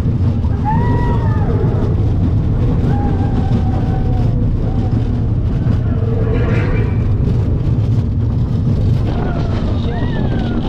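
Roller coaster train running along its track, a loud steady low rumble, with a few short gliding higher sounds over it.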